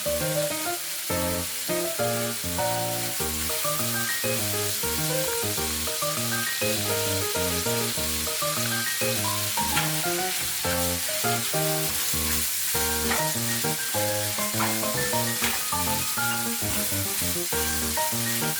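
Food sizzling steadily as it fries in a pan, over continuous background music with a melody of short pitched notes.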